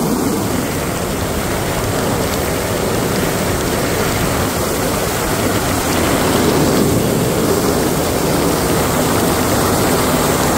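Outboard-powered aluminium boat under way: a steady rush of engine, water and wind noise.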